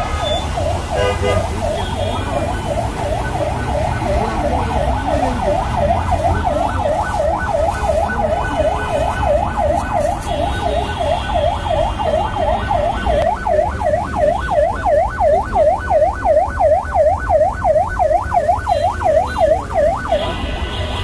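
Electronic siren yelping: a fast wail that sweeps up and down about three times a second, growing wider and louder about two-thirds of the way through, over a low traffic rumble.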